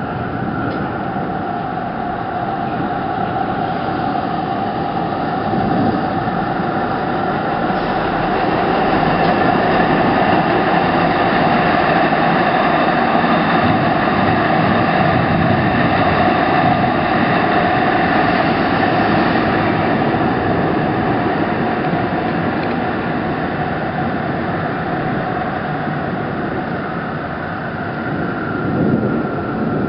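Passenger train passing: a steady running rumble with a held hum in it, building over the first several seconds, loudest in the middle, then slowly fading away.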